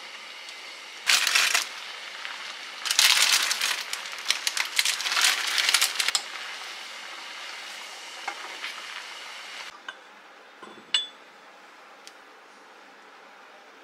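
Plastic instant-ramen packet crinkling as dry noodles are broken and shaken into a pan of simmering rabokki sauce: one short burst about a second in and a longer rustling run from about three to six seconds, over a steady simmering hiss. Near the end, quieter, a single glass clink.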